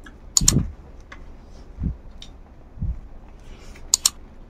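Close-miked eating by hand from a banana leaf: fingers gathering rice and salad, with a louder thump-and-click about half a second in, softer low thumps around two and three seconds, and two sharp mouth clicks as a handful goes into the mouth near the end.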